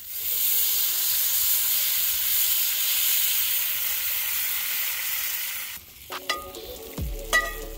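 Butter and squeezed lemon juice sizzling hard in a hot cast iron skillet with fish fillets. About six seconds in, the sizzle drops away and a few clicks and ringing tones follow.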